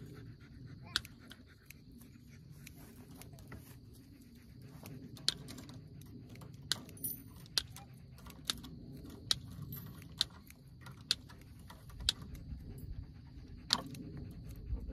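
Sharp metallic clicks and clinks, irregular and roughly one a second, from woven wire fencing being handled and fastened to a steel T-post, over a steady low background noise.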